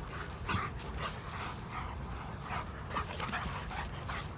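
Large guard dogs, a German Shepherd among them, play-wrestling: scattered short scuffling noises and faint dog sounds, with no clear bark.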